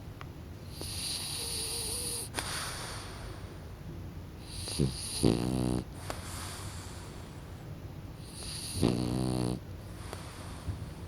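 French bulldog snoring in its sleep: a softer hissing breath, then two louder snores about four seconds apart.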